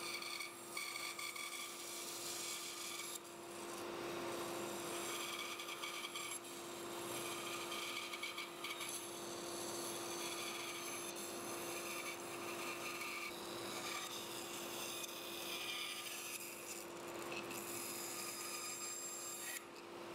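Bandsaw running with a steady hum while its narrow blade cuts a wooden block, the rasping of the cut rising and falling every few seconds as the block is fed into a series of cuts.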